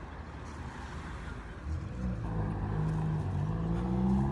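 Car engine speeding up: a low hum comes in about two seconds in and rises slowly in pitch.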